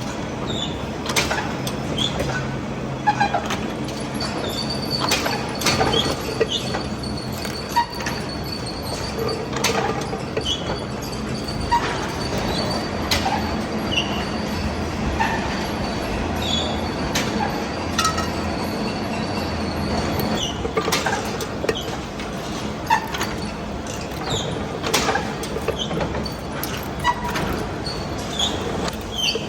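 Workshop machinery running steadily, with a low hum and frequent metallic clicks and knocks, and a thin high whine for about fifteen seconds in the middle, typical of a lathe turning a heavy steel shaft.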